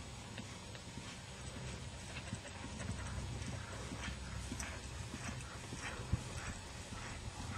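Hoofbeats of a ridden horse moving at a slow, even gait on grass, about three light thuds a second, getting a little louder as the horse passes close, over a low steady rumble.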